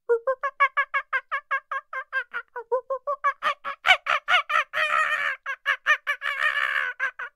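An animal's call: a rapid run of short pitched notes, about six a second, growing louder and harsher about halfway through and breaking off just before the end.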